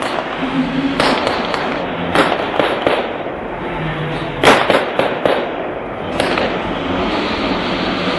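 Pyrotechnic bangs from a stunt show: about a dozen sharp reports in loose clusters, the loudest about four and a half seconds in.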